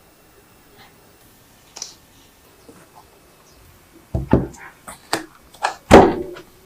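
Sharp knocks and clicks of kitchen work: a few faint clicks, then a quick run of louder knocks from about four seconds in, the loudest just before the end.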